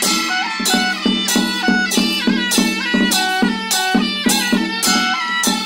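Traditional Taiwanese temple ritual music: a barrel drum beaten with two sticks in a steady beat, with strokes on hanging gongs, under a held, stepping melody on a shrill reed wind instrument.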